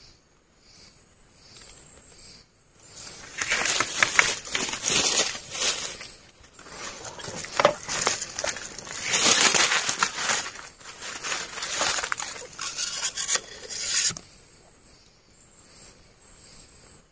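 Crunching and rustling of dry bamboo leaves and twigs underfoot, loud and crackly for about eleven seconds. Faint, evenly pulsing insect calls are heard before and after it.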